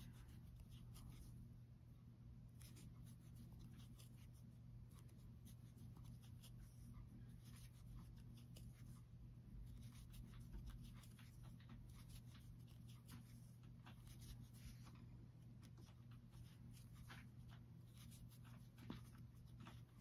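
Faint scratchy rustling and soft ticks of a metal crochet hook pulling aran yarn through stitches, over a low steady hum.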